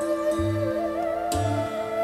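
Instrumental background music: a sustained, wavering melody over held tones, with a low bass note repeating about once a second.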